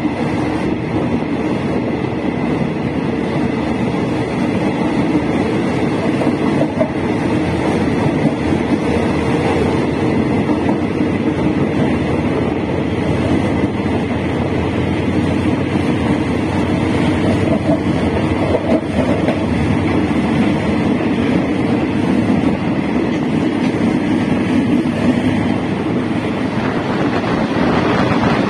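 Express passenger train running on the rails, heard from beside the coach: a steady rumble of wheels and running gear.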